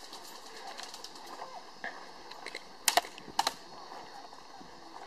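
Sharp snaps of airsoft gunfire: faint pops early, then one loud shot about three seconds in and two quick ones about half a second later.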